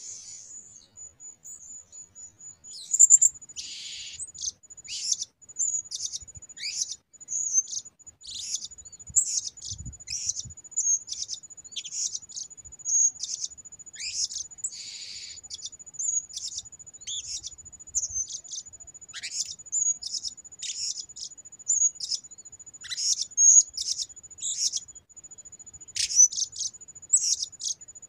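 Blue-crowned hanging parrots (serindit) calling: a long run of short, shrill chirps, roughly one a second, over a steady high-pitched whine.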